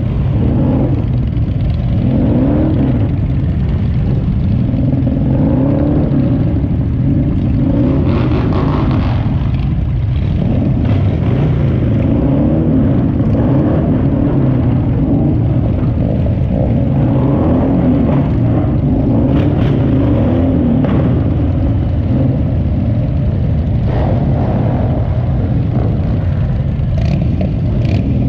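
Motorcycle engines running in a slow group ride: the ridden Harley-Davidson V-twin rumbles close to the microphone, with other bikes around it. The engine note rises and falls again and again as the bike speeds up and eases off.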